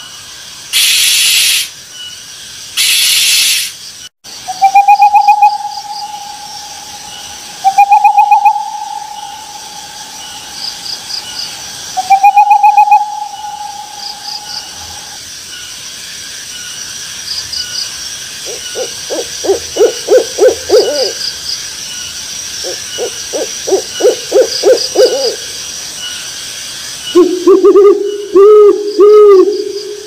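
Owl calls: two hissing bursts at first, then three long, level, whistled hoots, each opening with a short high note. Later come two rapid trilled runs of hoots and, near the end, a fast run of hoots, over faint repeating high chirps.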